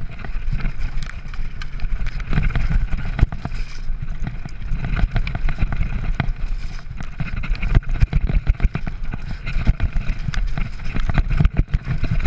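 Mountain bike riding fast down a rough gravel trail: tyres rumbling over stones, with frequent rattling clicks and knocks from the bike as it jolts over the bumps.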